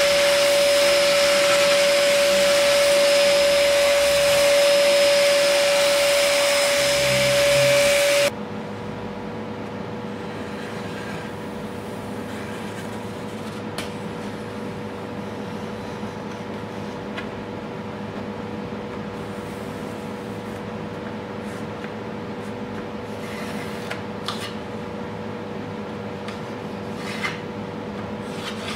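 A random orbital sander with a dust extraction hose runs on a wooden window frame with a steady whine, stopping abruptly about eight seconds in. After that a quieter steady hum remains, with a few light taps and scrapes as thin wooden glazing beads are handled and pressed into place.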